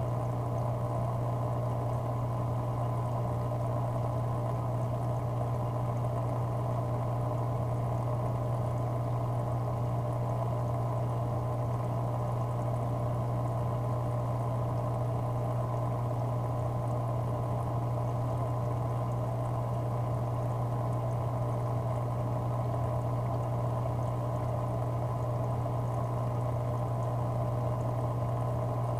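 Aquarium filter running: a steady low hum with a constant wash of pouring, bubbling water.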